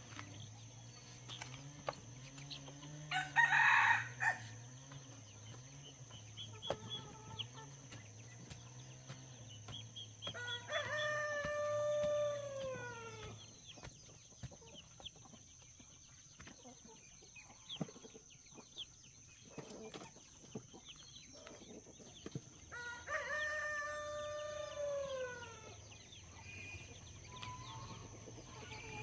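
A rooster crows twice, about twelve seconds apart, each crow a long held call that drops in pitch at the end. A short, loud, harsh noise a few seconds in is the loudest sound.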